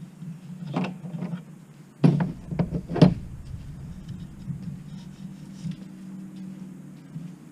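Clicks and knocks of tools and metal-and-plastic parts being handled while an LED light bar is unscrewed, the loudest two knocks about two and three seconds in, over a steady low hum.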